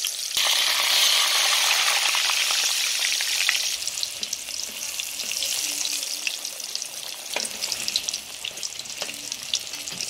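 Pressed plantain slices, wet from a dip in salted vinegar water, sizzling in hot oil during their second frying. A loud, steady hiss drops suddenly about four seconds in to a quieter crackle with many small pops as a spatula turns the pieces.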